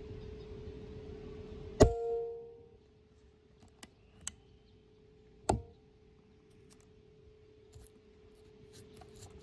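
A .22 PCP air rifle fires once about two seconds in, a sharp crack with a brief ringing decay. A few light clicks follow, then another sharp knock about five and a half seconds in, over a faint steady hum.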